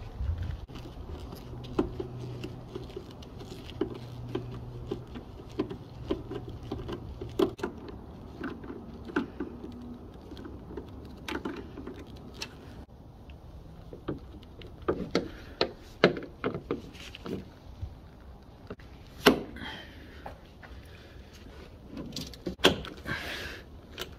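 Handling noises of hands and tools working on a car tailgate's hinge, trim and gas strut: scattered clicks, knocks and light rattles. A low steady hum runs underneath for the first several seconds.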